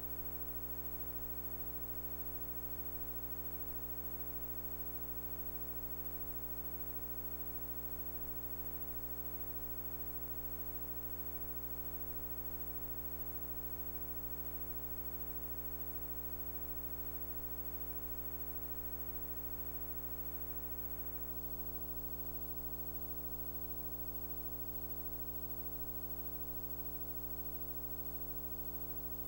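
A steady, unchanging buzzing drone with many overtones, held at one pitch. The high hiss above it thins slightly about two-thirds of the way in.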